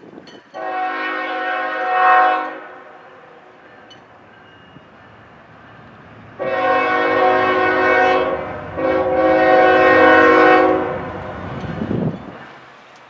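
Diesel locomotive air horn on Southern Railway heritage unit 8099, a GE ES44AC, sounding its multi-note chord in three long blasts for a grade crossing: one, then after a pause of about four seconds two more almost back to back. The locomotive's rumble swells near the end as it draws closer.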